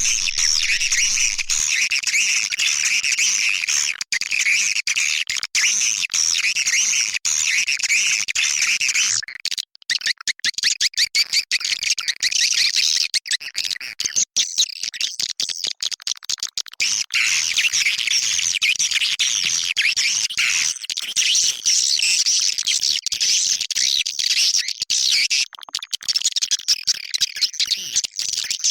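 Recorded swiftlet call sound: a dense, continuous twittering of many chirps, the kind of lure played from a swiftlet house to draw swiftlets in to nest. About nine seconds in, the chirping turns choppier and clickier, then thickens again.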